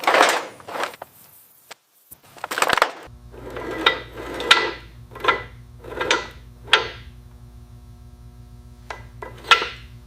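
A string of knocks and clatters from hard objects being handled, five of them about a second apart in the middle, over a steady low hum that comes in about three seconds in.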